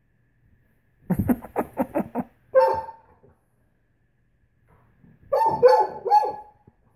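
Great Pyrenees barking in two bouts. First comes a quick run of about six short, low barks and then a longer call. Near the end come about three higher, drawn-out barks.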